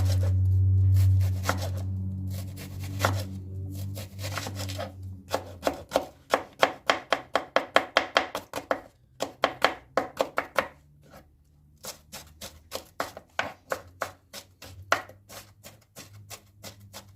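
A knife finely chopping onion on a cutting board: rapid chops, about five a second, in runs broken by short pauses.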